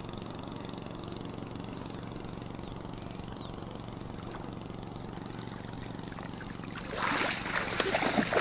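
A hooked fish splashing and thrashing in the shallows at the bank, beginning about seven seconds in and getting loud, over a low steady background noise.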